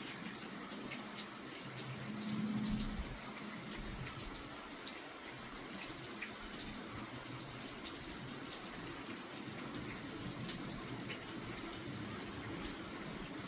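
Steady rain falling, with many scattered drips and patters. A brief low rumble comes about two and a half seconds in.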